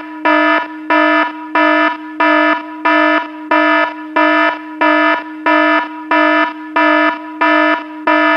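Electronic alarm-like beeping: a steady tone with a brighter beep pulsing over it about one and a half times a second.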